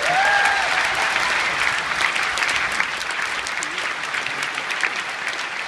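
Conference audience applauding after a line of a speech. The clapping is loudest at the start and slowly eases off.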